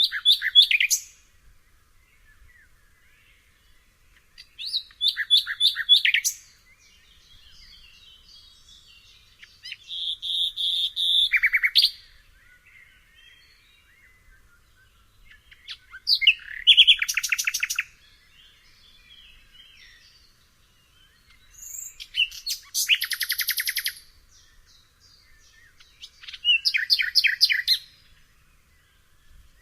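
Nightingale singing in separate phrases a few seconds apart, about six in all. Each phrase is a fast run of rapidly repeated notes and trills.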